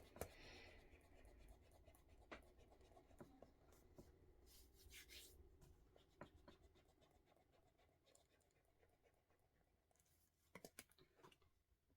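Faint pen writing on paper, with scattered light ticks and a short scratchy stretch about four to five seconds in. A few sharper clicks come near the end.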